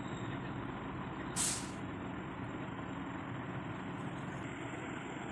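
Heavy truck diesel engine running steadily at idle, with one short burst of compressed air hissing from the truck's air system about a second and a half in.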